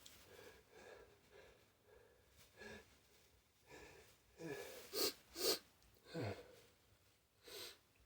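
A person's breathing as a sneeze builds up: a string of short, sharp gasping breaths and breathy 'ah' sounds, some falling in pitch. The loudest is a quick pair about five seconds in.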